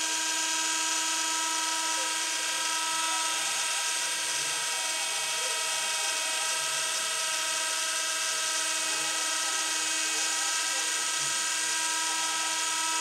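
CNC router spindle running with a steady high whine, while the stepper motors whir in short rising and falling glides as the axes move the cutter.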